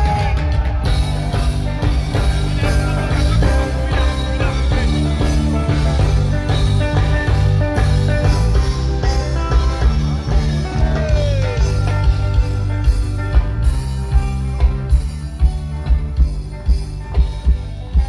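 A live band playing loud amplified music through a concert PA during a sound check, with heavy bass, drums and guitar and some singing. The steady beat stands out more over the second half.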